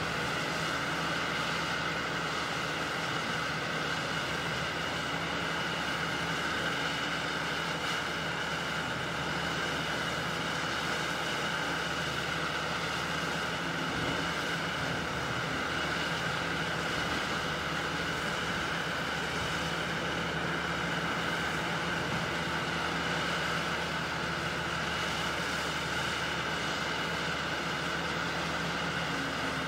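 Caterpillar 6015B demolition excavator's diesel engine and hydraulics running steadily as it works, a constant drone with a high whine over it.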